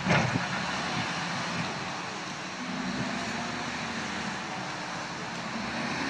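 Steady engine noise of a wheel loader pushing snow with a front-mounted plow blade, mixed with the road noise of passing traffic.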